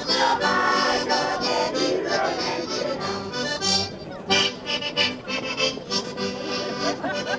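Traditional folk music, a melody over sustained chords, with one sharp tap about four seconds in.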